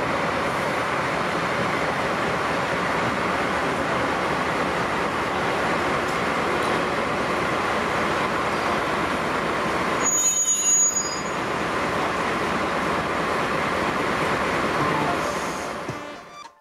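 DD51 diesel-hydraulic locomotive running as it moves slowly along the track, with a brief high squeal about ten seconds in. The sound fades out near the end.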